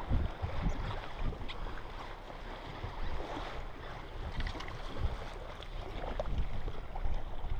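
Wind buffeting the microphone over choppy sea, with water splashing and lapping close by.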